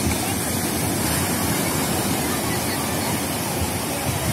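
Sea waves breaking and washing up a sandy beach: a steady rush of surf.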